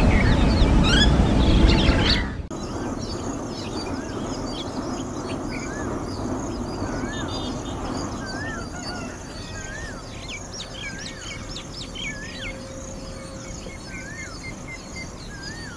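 Birds calling and chirping in the open. One bird repeats a short rising-and-falling whistle every second or so, over a steady low background. The sound is louder and denser for the first two seconds, then drops suddenly.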